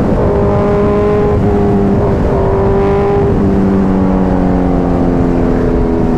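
Motorcycle engine pulling at steady revs while under way, with heavy wind and road rush over the microphone. The engine note holds level, changes slightly twice, then eases a little lower in the second half.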